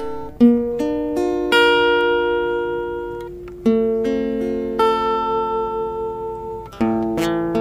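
Background music: slow acoustic guitar notes and chords, plucked a few at a time and each left to ring out.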